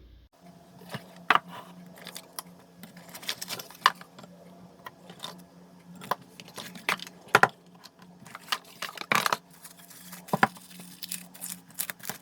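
Irregular small clicks, taps and clatters of hard objects being handled, a few sharper knocks among them, over a faint steady hum.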